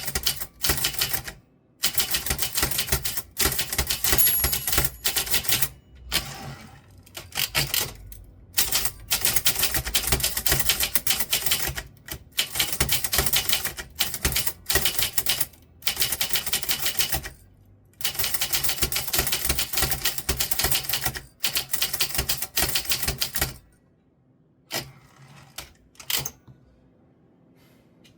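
Typewriter being typed on: rapid runs of key strikes in bursts with short pauses between them, stopping a few seconds before the end, followed by a few faint clicks.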